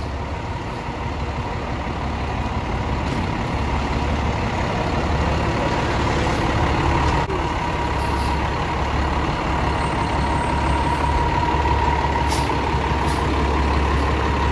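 A parked fire engine's diesel engine running steadily: a low, even drone with a thin high whine over it that grows a little louder about halfway through.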